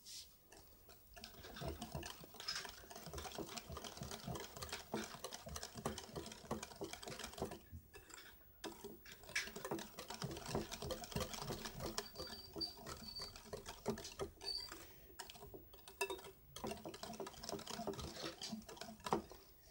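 Hand wire whisk beating a runny batter of eggs, sugar, oil and yogurt in a glass bowl: a fast, continuous clicking of the wires against the glass, broken by two short pauses, about 8 and 15 seconds in.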